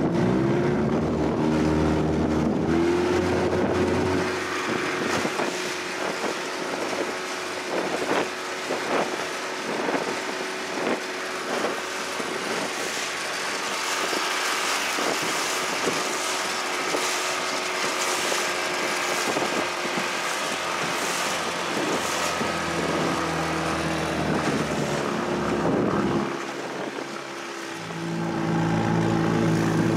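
Outboard motor on a small aluminum fishing boat running at speed, its pitch climbing over the first few seconds as it throttles up and then holding steady. The hull knocks and slaps on choppy waves, and wind rushes on the microphone. The motor eases off briefly near the end, then picks up again.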